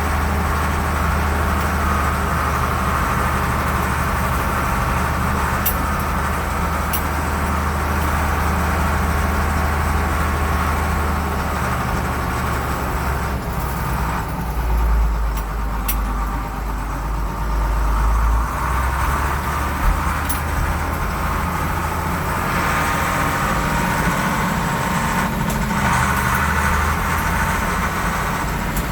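Farm tractor engine running steadily while the tractor is driven, with a heavier low rumble for a few seconds about halfway through.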